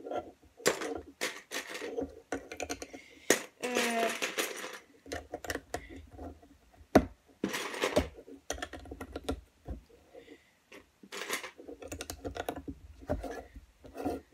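LEGO bricks clicking and clattering in an irregular run of sharp clicks, as a hand sorts through a plastic bin of loose bricks and presses bricks onto a small build.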